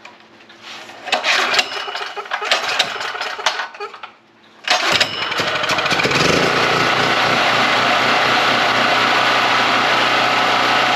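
Knocks and clicks as the generator's controls are handled. About five seconds in, the Predator 4000 generator's small single-cylinder engine starts, picks up speed and then runs steadily. It is running again now that its clogged pilot jet has been cleared.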